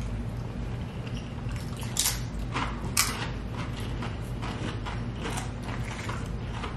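Close-up eating sounds: a run of sharp clicks and crunches, the two loudest about two and three seconds in, over a low steady hum.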